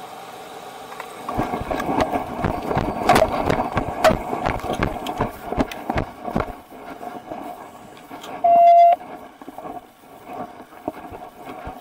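Body camera and duty gear jostling as a deputy runs across a lawn: a few seconds of quick, irregular knocks and rustling that then settle down. About eight and a half seconds in, a short, loud electronic beep sounds for about half a second.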